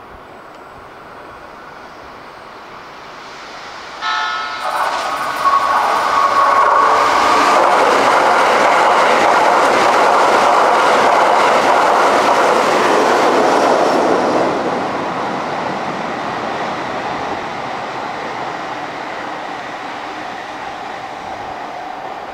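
Keikyu 2100 Series limited express train sounding a short horn blast about four seconds in, then running through the station at speed: a loud rush of wheel and rail noise for about ten seconds that fades slowly as the train moves away.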